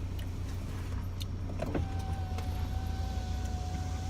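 Low steady rumble of an idling car, heard from inside the cabin. A faint steady high tone comes in about two seconds in, with a couple of light clicks.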